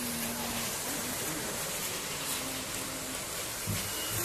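Steady, hiss-like running noise of 00 gauge model trains on the layout's track, with a short low bump near the end.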